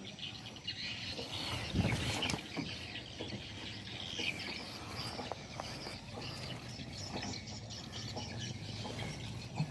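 Outdoor ambience with scattered bird chirps and a series of knocks and clicks, with one louder thump about two seconds in.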